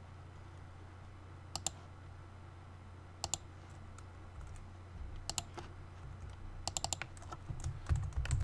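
Typing on a computer keyboard: a few short runs of keystrokes with pauses between them, over a steady low hum.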